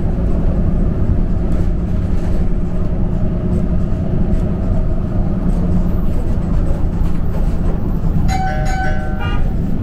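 Steady low engine and road rumble of a TransJakarta bus, heard from inside the moving bus in heavy traffic. Near the end a short pitched tone lasting about a second rises above the rumble.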